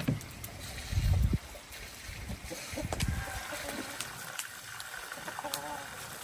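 Chickens clucking softly in short calls, with a low thump about a second in.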